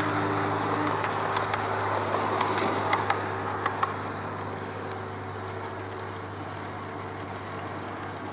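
Model InterCity 125 (HST) train running past on the track: a steady motor hum with sharp clicks of the wheels over the rail joints, easing off after about four seconds.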